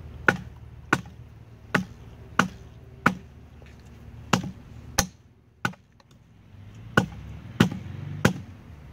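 A block of firewood striking a wet, knotted nylon ratchet strap lying on another wood block: about eleven sharp knocks, roughly one every two-thirds of a second, with short pauses midway. The strap is being pounded to work the soaked knot loose.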